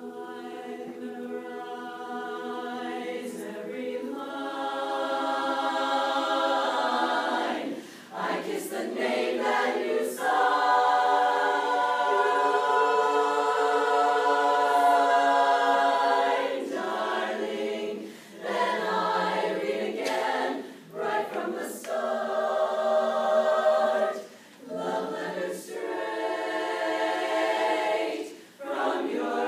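A chorus singing a cappella in close harmony: long held chords swell over the first few seconds, then phrases break off and restart every few seconds.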